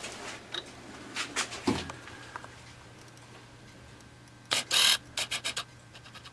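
Short handling noises: rubbing, scraping and clicking, with the loudest, a scrape of about half a second, a little past the middle, followed by a quick run of clicks, over a faint steady low hum.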